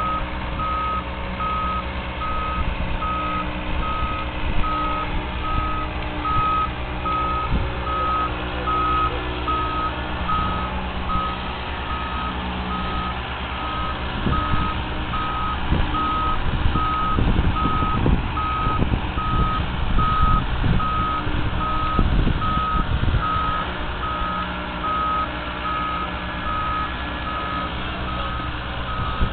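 Boat travel lift hoisting, its warning alarm beeping at an even pace over the steady low running of its engine. About halfway through comes a spell of several seconds of rattling knocks.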